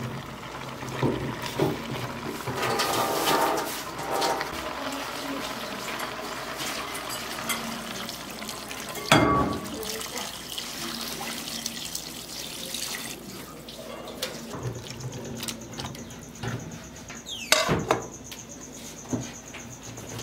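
Water poured into a metal cooking pot of maxixe and beef, a steady rushing pour over several seconds with a sharp knock about halfway through. Later a metal pot lid clanks down onto the pot, and a faint high steady tone sounds near the end.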